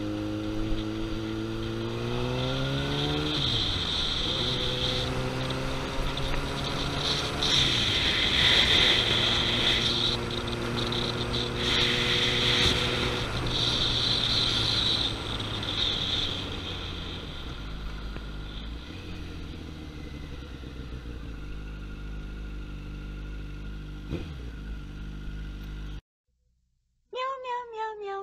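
Yamaha FZ1's inline-four engine accelerating, its pitch climbing and dropping at upshifts about three and seven seconds in, then running steadily and settling lower and quieter toward the end. The sound cuts out suddenly near the end, and a cat meows.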